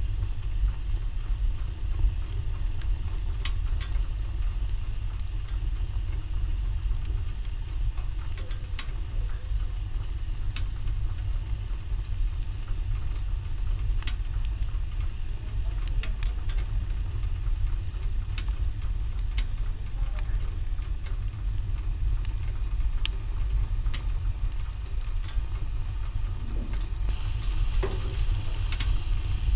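Wood fire in a fireplace crackling, with sharp pops scattered irregularly over a steady low rumble.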